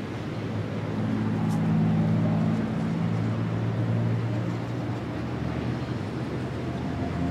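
P-51 Mustang's Merlin V-12 aero engine droning in flight. It grows louder about a second in, is loudest around two seconds, then eases off a little.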